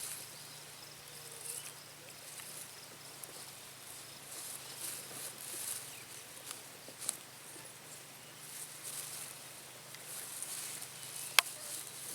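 Chickens foraging in short pasture grass and clover: faint, irregular rustling and pecking, with soft scattered clicks and one sharper tick near the end.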